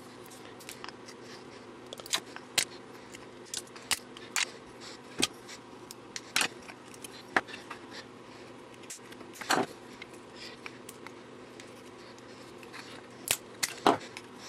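Side cutters biting into the black plastic case of a potted hybrid module: a string of sharp, irregular cracks and snaps as pieces of the plastic break away.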